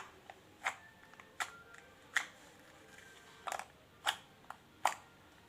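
Homemade slime being squeezed and poked by hand, giving sharp clicks and pops about once a second, some in quick pairs. The slime is on the stiff side.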